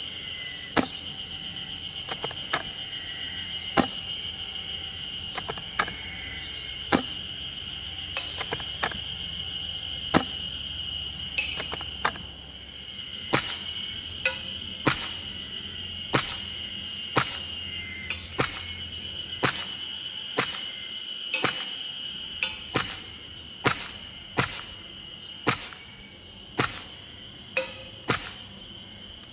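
Airsoft gun shots fired in a long series, about one a second and coming faster in the second half, with pellets striking frying-pan-lid targets, some hits leaving a short metallic ring. A steady high insect buzz runs underneath.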